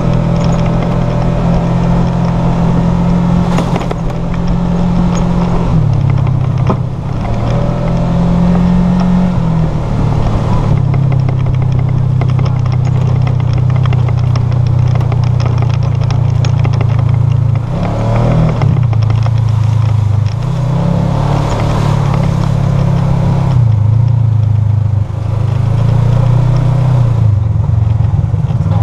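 Side-by-side UTV engine running under way, its pitch dropping and picking up again several times as the throttle is eased off and reapplied. A few sharp knocks and rattles come through over the engine.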